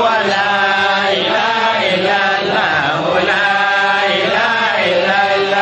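Men's voices chanting Islamic dhikr into microphones, in long held, wavering melodic lines.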